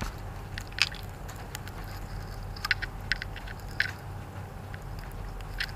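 A few scattered small clicks and crinkles of hands handling a light's plug connector while plugging it in, over a faint steady low hum.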